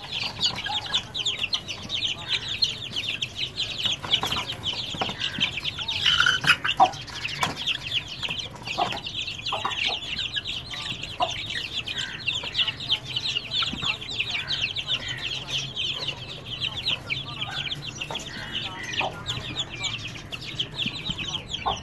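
Many young chicks peeping at once, a continuous chorus of quick, high peeps with occasional lower, louder calls mixed in.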